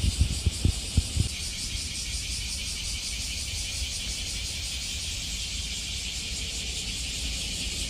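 Steady, finely pulsing high-pitched drone of an insect chorus, with a few low thumps in the first second or so.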